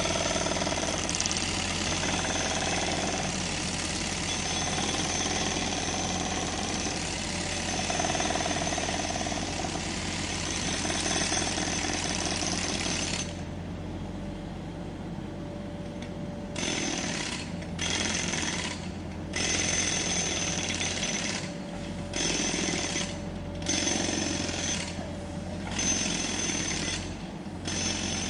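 Jackhammer breaking up a road: it hammers without a break for about thirteen seconds, stops, then starts again in short bursts of a second or so with pauses between. A steady low hum runs underneath.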